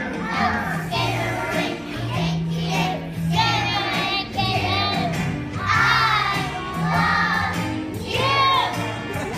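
A children's song: young voices singing over an instrumental accompaniment with steady bass notes that change about once a second.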